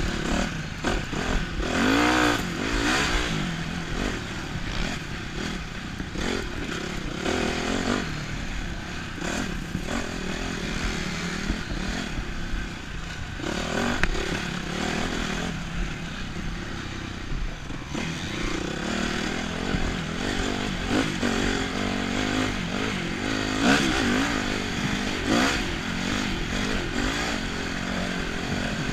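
Dirt bike engine running hard, revving up and down repeatedly as the throttle opens and closes.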